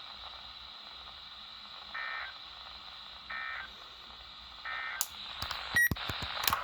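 Three short warbling data bursts of an EAS end-of-message code sent over NOAA Weather Radio, each about a third of a second long and spaced a little over a second apart, over a steady radio hiss. About five seconds in, the audio turns to crackling static with sharp clicks.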